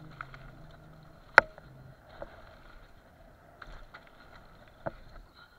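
Downhill mountain bike rolling down a dirt trail, heard from a camera riding along: a steady rumble of tyres on dirt with sharp clicks and knocks from the bike over bumps, the loudest about a second and a half in.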